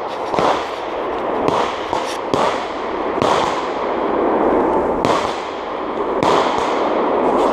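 Repeated distant bangs, roughly one every second or so, each trailing off in a long rolling echo over a steady rushing noise.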